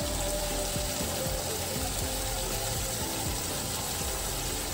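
Oil and onion-ginger-garlic paste sizzling steadily in a kadai.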